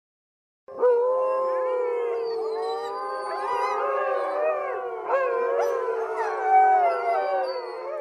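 A pack of wolves howling in chorus, starting about a second in: several voices overlap, each gliding up and down at its own pitch, some high and wavering.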